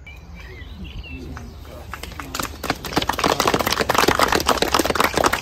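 A small outdoor crowd applauding, the clapping building up about two seconds in and running on loud. A few bird chirps are heard just before it.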